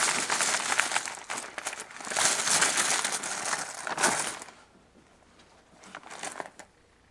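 Crinkling and rustling of something crinkly handled by hand, dense for about four and a half seconds, then fading to a few quieter crinkles around six seconds in.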